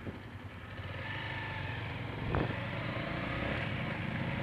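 Motorcycle engine pulling away and picking up speed, getting louder over the first second or so and then running steadily, heard through a helmet-mounted camera. A single sharp knock sounds about two and a half seconds in.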